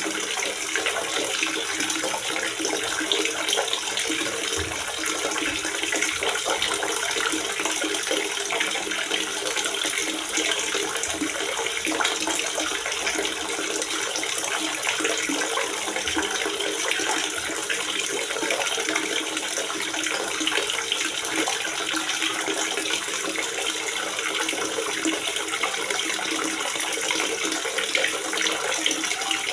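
Water gurgling steadily in a water reservoir: an even, unbroken rush of flowing water.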